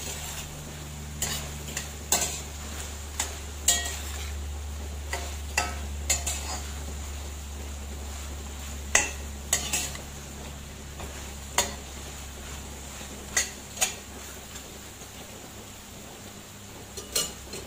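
A cooking utensil stirring vegetables in a frying pan, knocking and scraping against the pan in a dozen or so irregular sharp clinks, over a steady low hum.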